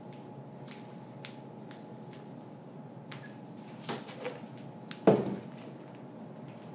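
Gloved hands handling a slab of hard candy on a work table: scattered light clicks and taps, with one louder knock about five seconds in, over a steady low hum.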